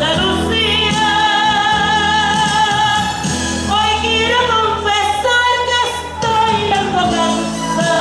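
A woman singing a ballad through a microphone over accompanying music, holding long notes with vibrato.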